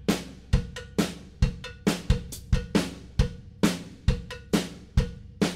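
Background music: a drum groove playing alone, kick and snare with cymbals, about two beats a second.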